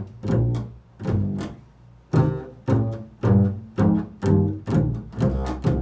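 Bass played pizzicato: an improvised run of low plucked notes, about two a second, each struck sharply and ringing briefly before the next.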